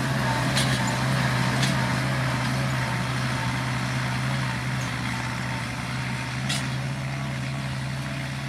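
Kubota M7040 tractor's diesel engine running at a steady, even speed, with a few short clicks or knocks along the way.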